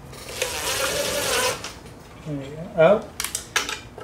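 Cordless impact driver running for about a second and a half, driving a screw into the wooden birdhouse roof to pull the bowed board flat. A short hummed voice sound follows, then a few light taps.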